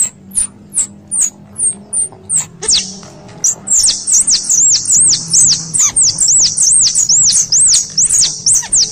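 Squirrel calls, a recording used as a lure to draw squirrels in: high, sharp chips about two to three a second, then about three seconds in a faster, steady run of arched, down-sliding calls.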